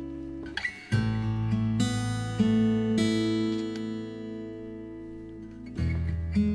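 Background music: acoustic guitar strummed in sustained chords that change about every second, with fresh strums about a second in and again near the end.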